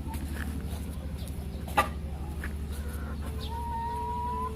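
Chickens clucking, with one long, slightly rising call near the end, over a steady low mechanical drone. A single sharp knock comes just under two seconds in.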